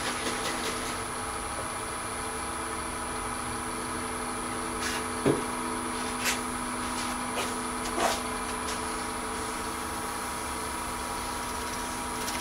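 Wood lathe running steadily at speed with nothing cutting: a constant motor hum, with a few short, faint ticks in the middle.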